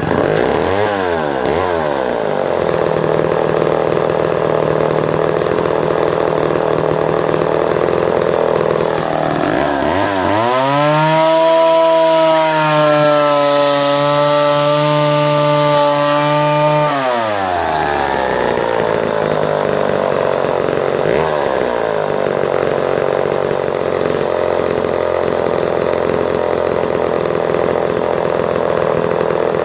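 Homelite Super XL 12 Automatic 58cc two-stroke chainsaw firing at once on a warm restart. It starts on the throttle lock's fast idle and falls back to idle within a couple of seconds. About ten seconds in it revs up and holds full throttle for about seven seconds, then drops back to idle, with one short blip of throttle a few seconds later.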